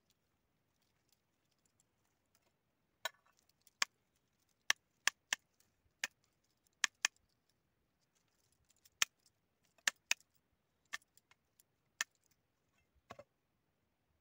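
A series of sharp, separate clicks and snaps, about fifteen spread over ten seconds, from woody pomegranate cuttings being handled and sorted.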